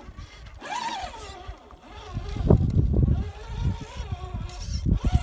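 Radio-controlled rock crawler motors whining as they climb, the pitch rising and falling with the throttle, over an uneven low rumble with thumps, the loudest about two and a half seconds in.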